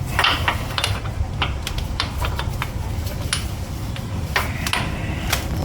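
Irregular clicks and taps of hand tools on the steering rack's bolts and hose fittings, about fifteen in all, over a steady low rumble.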